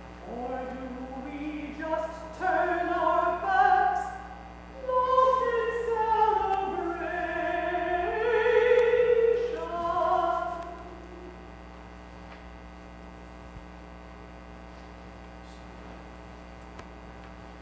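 A single voice singing a slow melody with long held notes. It stops about ten seconds in, leaving only a steady low hum.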